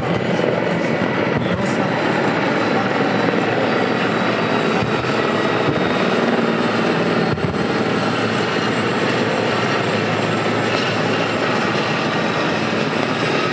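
Mil Mi-8-family twin-turbine transport helicopter flying low, a loud, steady rotor and turbine noise.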